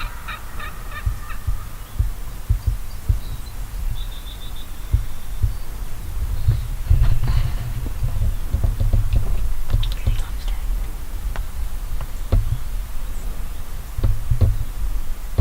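A wild turkey gobbler gobbles, a rapid rattling call that trails off in the first second and a half. After that, uneven low thumps and rumble on the microphone, with a few faint high bird chirps.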